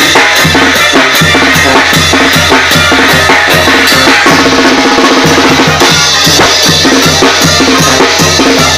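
A banda plays loudly: a tambora bass drum and cymbals keep a steady beat of about two to three strikes a second, under sustained brass notes from trumpets.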